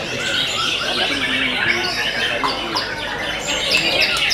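Several caged white-rumped shamas singing at once, a dense, overlapping tangle of whistled and trilled phrases mixed with harsh notes.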